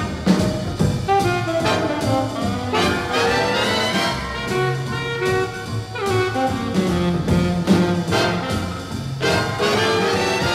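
Background jazz music with brass instruments, playing steadily.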